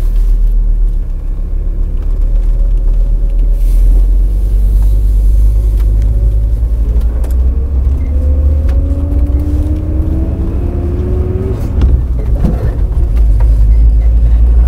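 Cabin noise of a 1994 VW T4 2.5 Syncro bus on the move: a heavy low rumble of engine and road, with a whine that rises in pitch for about three seconds from around eight seconds in, and a short knock about a second after it stops. The bus is being driven to find a clatter and grinding at the front right wheel.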